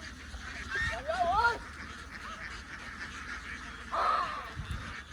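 Ducks calling: a short run of rising-and-falling calls about a second in, then a single harsher quack about four seconds in.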